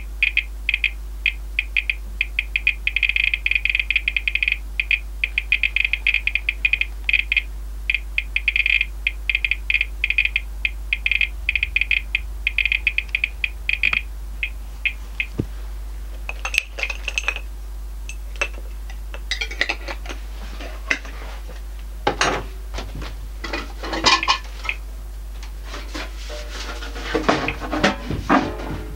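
RadEye G-10 gamma survey meter's Geiger counter clicking fast and unevenly, its count-rate audio registering a dose rate of about 7.5 µSv/h near a radioactive source. The clicks thin out and stop about halfway through, followed by knocks and rubbing from the meter being handled and set down.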